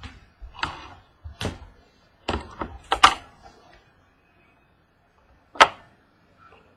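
Knocks and clicks from opening a trading-card box and handling its packaging: about six sharp strokes over the first three seconds and another near the end, with a quiet stretch between.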